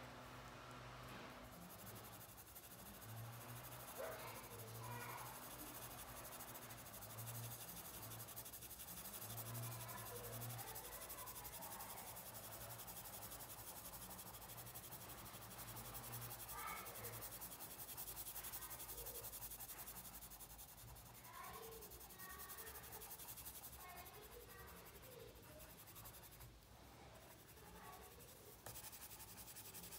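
Colored pencil scratching faintly on paper as it shades in short back-and-forth strokes.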